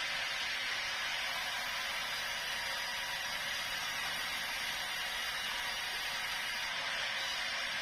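Sawmill saw running steadily, heard as an even, unbroken hiss.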